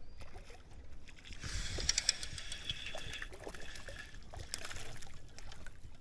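Water splashing and lapping, with scattered small knocks and clicks; the splashing is thickest from about a second and a half in to about three seconds.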